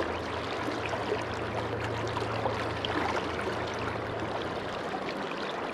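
Steady rush and gurgle of a shallow river's current flowing past a wading angler. A low steady hum runs underneath and stops about four and a half seconds in.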